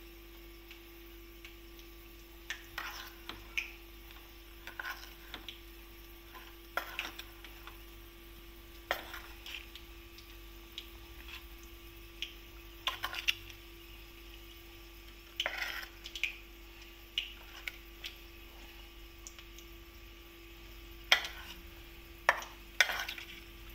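A steel spoon stirs soaked tapioca pearls and ground peanuts in a stainless steel bowl, scraping and clinking against the bowl at irregular moments, with a few sharper knocks near the end. A steady faint hum runs underneath.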